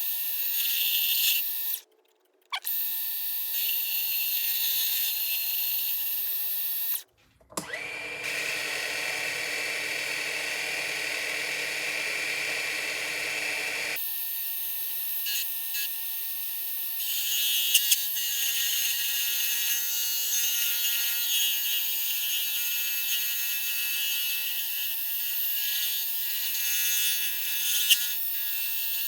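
Small 60 W micro metal lathe motor running with a steady high-pitched whine while turning a small knob. The sound cuts out briefly twice, and from about seven to fourteen seconds in it is fuller and lower.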